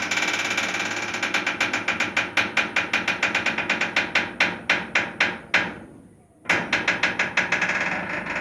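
A door's hinge creaking in a long, stuttering creak made of rapid clicks that slow down and stop about six seconds in. After a brief pause a second fast creak starts up.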